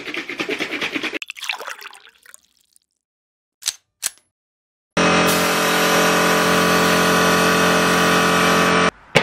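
A metal can shaken rapidly for about a second, two short clicks, then a paint spray gun hissing steadily with compressed air while spraying paint, cutting off suddenly near the end.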